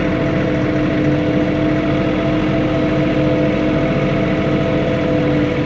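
Diesel engine of a John Deere 3046R compact tractor running at a steady speed, a constant hum with no change in pitch, heard from inside the tractor's cab.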